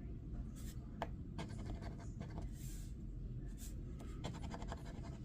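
Scratch-off lottery ticket being scratched, its coating rubbed off in several short bursts of fine scratching strokes, with longer rapid runs about one and a half and four seconds in.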